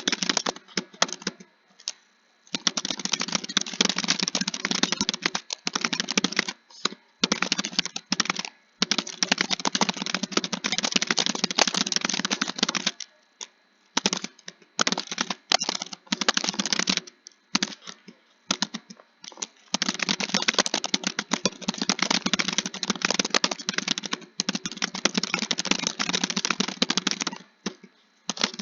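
Fast typing on a computer keyboard: dense runs of key clicks with short pauses between bursts.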